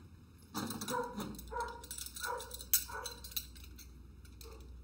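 A series of short pitched yelps, about five in two and a half seconds, with a single sharp metal clink just after halfway as small bolts, washers and nuts are handled.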